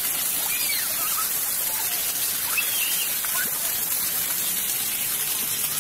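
Water jets of a ground-level splash-pad fountain spraying up from grates in the paving and pattering back onto the wet stones, a steady hiss.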